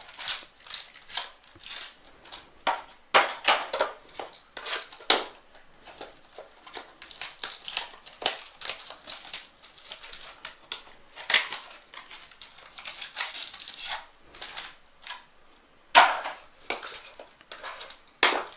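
Trading-card pack wrappers being torn and crinkled open by hand: a run of irregular crackles and rips.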